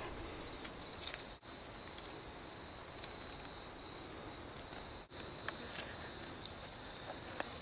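Steady high-pitched chirring of insects, with a few faint clicks scattered through it.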